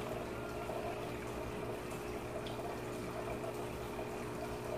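Aquarium equipment running: an even pump hum with steady bubbling water from the tank's aeration.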